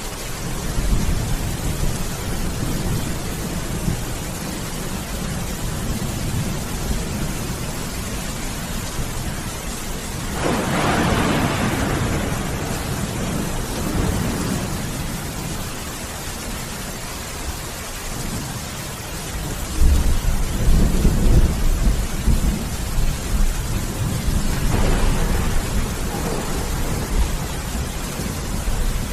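Steady heavy rain with rolling thunder: one long rumble swells about ten seconds in, and a deeper, louder thunderclap breaks suddenly about twenty seconds in and rumbles on.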